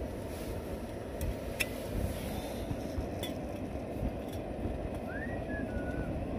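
A remote-canister camping gas stove burning with a steady rush of flame. A few light clicks come as a steel mug is set on the burner, and near the end a faint whistle rises and falls.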